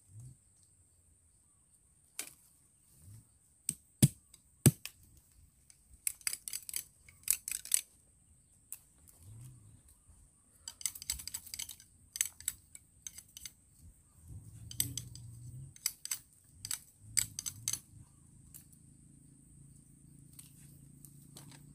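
Irregular sharp snaps, clicks and crackling of dry bamboo sticks and leaf litter being handled and broken, with two loud cracks about four seconds in. A steady high-pitched insect drone sounds behind them.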